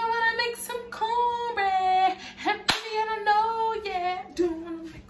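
A woman singing a short phrase unaccompanied, holding long notes that slide up and down in pitch, with one sharp click about two and a half seconds in.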